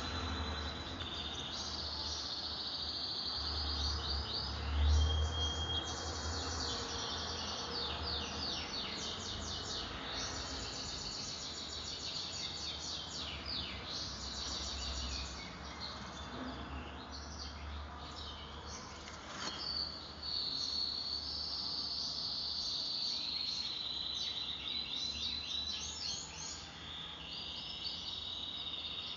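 Insects chirping in fast, high-pitched pulsed trains, with a bird calling now and then and a low rumble underneath.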